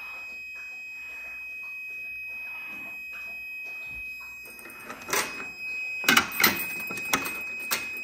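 Fire-Lite MS-5UD fire alarm control panel's piezo buzzer, taped over because it is loud, sounding one steady high-pitched tone: the panel is in alarm after the Notifier BG-12 pull station was pulled. Several knocks and clicks come in the second half.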